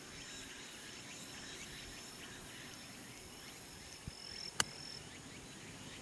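A single sharp click about four and a half seconds in: a 58-degree wedge striking the golf ball on a short approach shot. Under it, steady outdoor background noise with a faint, thin high tone.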